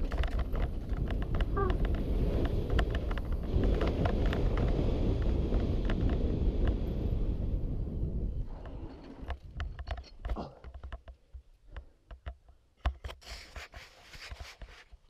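Mountain bike descending a dirt trail, heard from a helmet-mounted camera: heavy wind and tyre rumble with constant rattling knocks from the bike and the shaky mount. About eight and a half seconds in, the rumble falls away as the bike rolls onto grass and slows, leaving scattered clicks and knocks.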